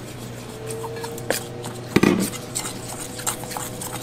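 Kitchen utensils and dishes being handled while beef strips are prepared: scattered light clinks and taps, with one louder thump about two seconds in, over a faint steady low hum.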